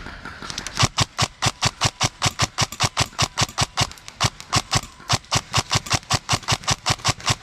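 Specna Arms E26 MK18 electric airsoft rifle firing single shots in quick, even succession, about four or five a second, starting about a second in.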